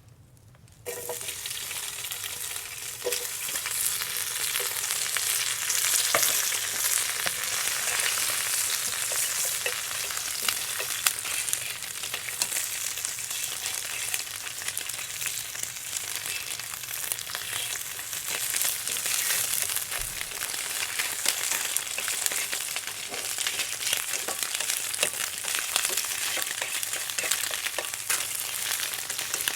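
Food dropped into a hot, oiled pan about a second in, then sizzling and spitting steadily as it fries.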